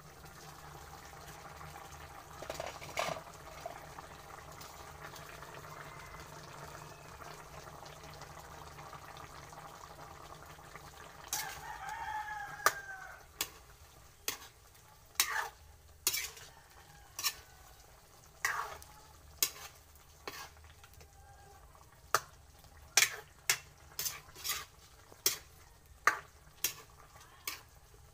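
Chicken pochero simmering in a metal pan, then a spatula stirring it, knocking and scraping against the pan in sharp clicks about once or twice a second through the second half. A rooster crows once in the background about halfway through.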